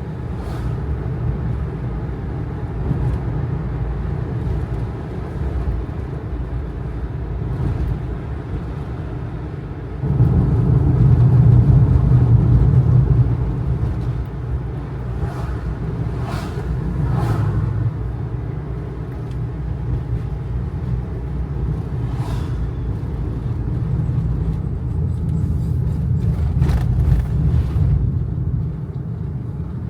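Kei truck's small 660 cc engine and road noise heard from inside the cab as it drives a mountain road, a steady low rumble that grows louder for a few seconds about a third of the way in as the engine works harder. A few short knocks and rattles from the cab come now and then.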